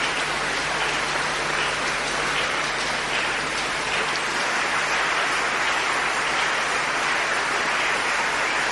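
A large congregation applauding steadily, a dense unbroken clatter of many hands.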